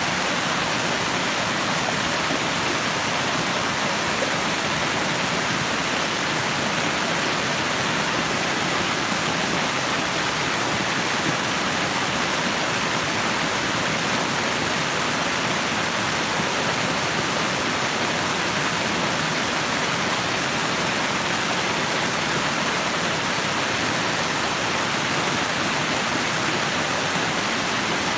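Rushing water, a steady unbroken hiss with no change in level.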